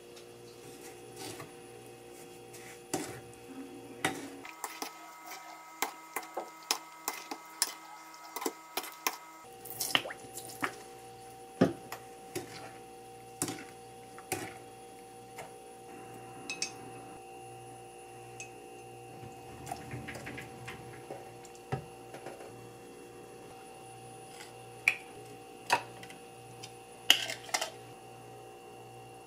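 Wooden spatula stirring a wet mix of sliced tangerines and sugar in a glass bowl, with squelching and many sharp knocks and clicks against the glass. Near the end the mixture is scraped into glass jars, with louder clinks. A faint steady hum runs underneath.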